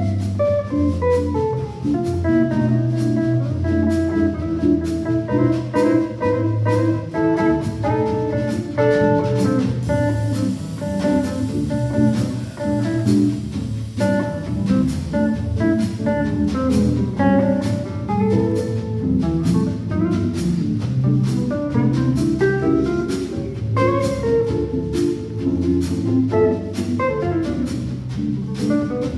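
Live jazz from a small band of four guitars with double bass and drum kit: guitar lines over the bass, with steady cymbal strokes throughout.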